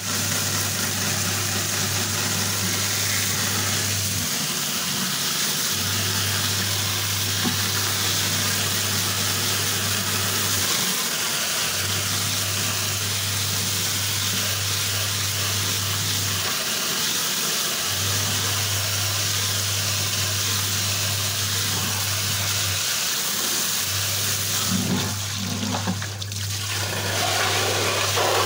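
Water spraying from a hose nozzle onto the wire-mesh element of a diesel engine air cleaner, a steady hiss, with a low hum underneath that drops out for about a second roughly every six seconds. The spray sound changes in the last few seconds.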